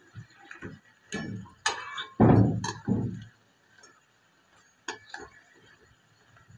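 A metal slotted spoon tapping and scraping against an aluminium kadai while it turns kababs frying in oil. There are a few light taps, then heavier knocks from about two to three seconds in, and a couple more taps near the end.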